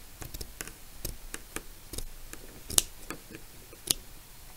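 Scissors snipping through plastic needlepoint canvas along its grid: a run of small crisp clicks, with two sharper snips about three seconds in and near the end.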